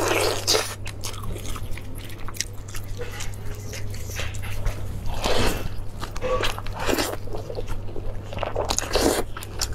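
Close-up eating sounds of a person biting into and chewing braised lamb on the bone, in irregular bursts, with a steady low hum underneath.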